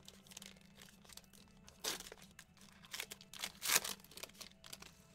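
A foil trading-card pack wrapper being torn open and crinkled by hand: a run of crackles, loudest about two seconds in and again around three and a half seconds in.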